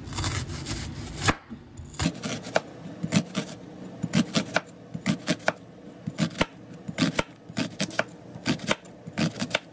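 White onion being chopped with a knife on a cutting board: a run of sharp, uneven knife strikes, about two or three a second, most of them from about two seconds in.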